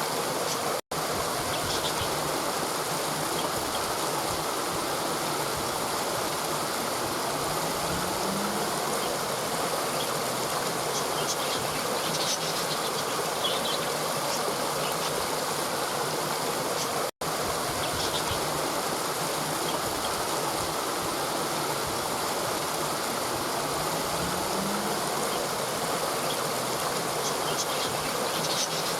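Steady rushing of flowing river water over rocks, with a few faint high bird chirps. The sound drops out for an instant twice, at the seams of a looped recording.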